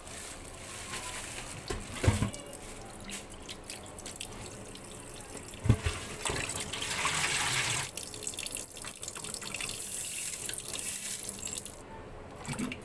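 Water running and splashing in a steel pot of raw beef pieces, with two sharp knocks against the pot about 2 and 6 seconds in.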